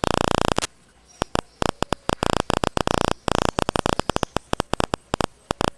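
Harsh electronic buzz with a hum-like tone, cutting in and out in rapid, irregular stuttering bursts, typical of audio interference or a recording glitch.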